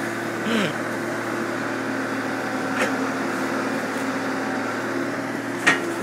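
Excavator's diesel engine running with a steady hum, and two sharp knocks, one about three seconds in and a louder one near the end.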